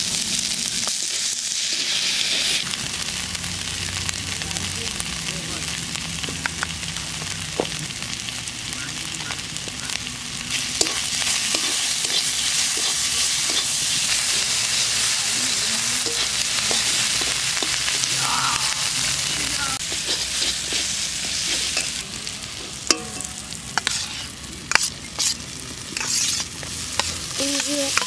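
Sliced onions and red chili powder sizzling as they fry in a metal wok, stirred with a steel spatula that scrapes and clicks against the pan. The sizzle gets louder about ten seconds in, and a few sharp knocks come near the end.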